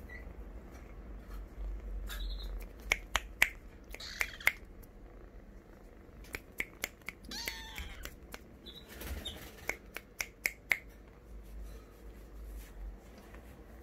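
Sharp clicks and taps in three short clusters, with a brief kitten mew about halfway through.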